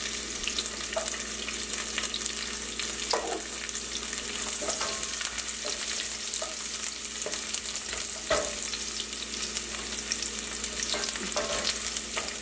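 Sliced garlic frying in hot sesame oil with dried red chillies and whole spices in a nonstick pan: a steady sizzle, with a wooden spatula now and then scraping and tapping against the pan as it is stirred.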